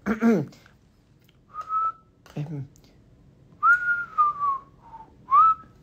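A man whistling through pursed lips: four short whistled notes, the longest a falling note about four seconds in, ending on a short rising note.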